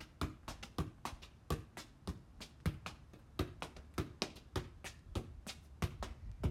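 Soccer ball juggled with the feet: a quick, uneven run of light taps, about three or four a second, as the foot touches the ball.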